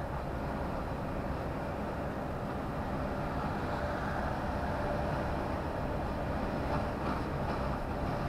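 Steady low engine drone and tyre and road noise heard inside a lorry cab cruising at motorway speed.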